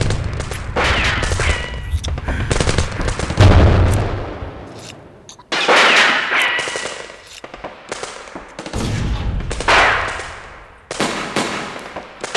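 War-film battle sound effects: a series of gunshots and blasts, a new one every second or two, each dying away in a rumble, with a deep boom about three and a half seconds in. Short whistling tones ring out after two of the blasts.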